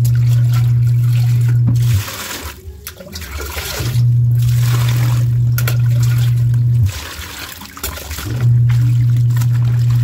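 LG 16 kg washing machine running its wash cycle: a loud low motor hum in stretches of about three seconds with pauses of a second or two between, stopping about two seconds in, running again from about four to seven seconds, and starting again near the end. Under it, water splashes and trickles as clothes are pushed down and wrung by hand in a basin of softener water.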